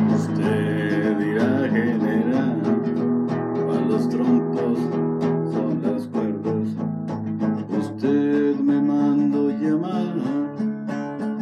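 Acoustic guitar strummed in a corrido rhythm, with a man singing over it for stretches.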